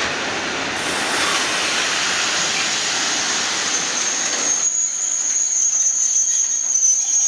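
Loaded timber wagons of a freight train rolling past with a steady rush of wheel and rail noise, joined about four seconds in by a high, steady metallic squeal from the wagons' wheels. The rush falls away shortly after the squeal starts.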